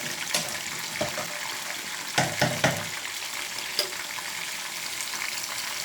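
Food deep frying in hot oil: a steady hissing sizzle with scattered crackles, and a quick run of three louder pops a little over two seconds in.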